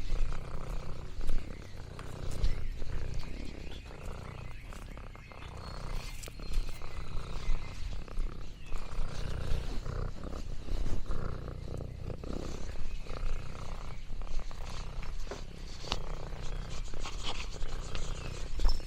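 Domestic cat purring close up: a low, continuous rumble that swells and eases in stretches of a second or two, with a few light clicks over it.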